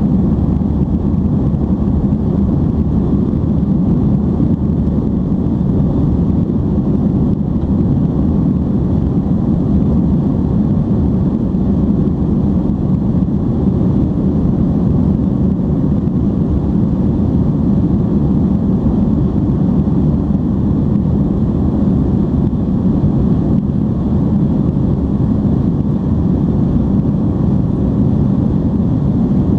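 Steady, low cabin roar of an Airbus A310-325 airliner in flight: engine and airflow noise heard from a window seat, unchanging throughout.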